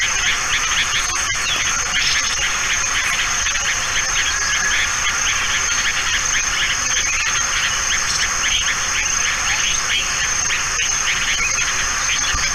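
Dense outdoor chorus of insects: a steady high shrill with rapid chirping underneath, unbroken throughout.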